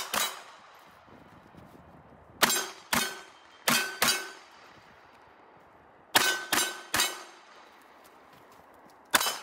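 Glock 19X 9mm pistol shots in quick strings of three, with single shots at the start and near the end. Several hits are followed by a brief metallic ring from a struck steel target.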